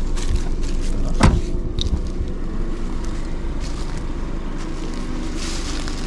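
A car engine idling steadily, with a car door shutting with a thud about a second in.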